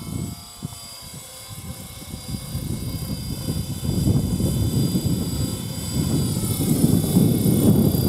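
Radio-controlled model helicopter with a four-blade main rotor flying, a steady high whine over a rough low rotor noise that grows louder over the last few seconds as the model comes closer.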